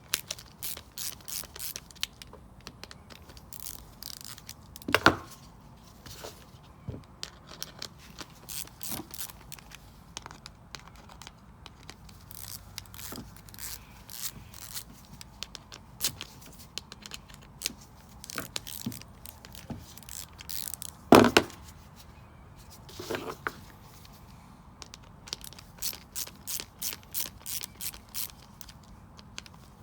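Many small clicks and scrapes of hands and tools on a plastic Briggs and Stratton lawn mower carburettor as it is opened up, with two louder knocks about five and twenty-one seconds in.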